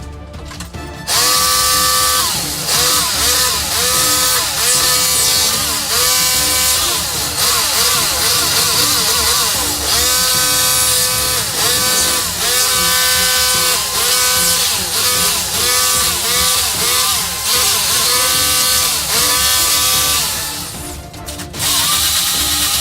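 Background music: a loud track with a repeating melody whose notes bend and glide in pitch. It dips for about a second near the end, then comes back.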